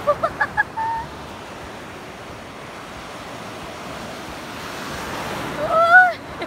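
Sea surf washing and breaking, a steady rush with wind buffeting the microphone. A woman's voice cuts in with a few short bursts in the first second and a loud rising-and-falling exclamation near the end, the loudest sound.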